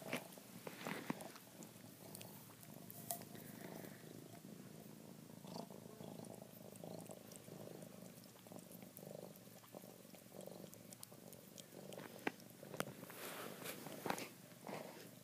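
House cat purring steadily while it eats, with a few faint clicks as it feeds from a metal can.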